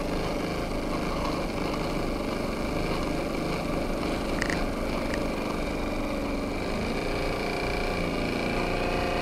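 Live-steam model marine engine running fast and steady on about 20 psi of boiler steam, a dense mechanical patter, with two light clicks about halfway through.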